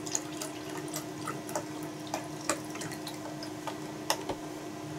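Chicken broth pouring from a carton, splashing and dripping, with a few sharper clicks and a steady low hum underneath.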